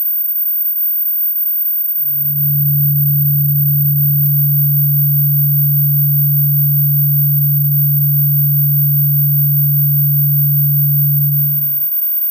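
Synthesized high-frequency dog-whistle deterrent tone: a steady, very high whistle near the top of hearing, meant to stop dogs barking. About two seconds in, a loud steady low tone joins it and stops again just before the end.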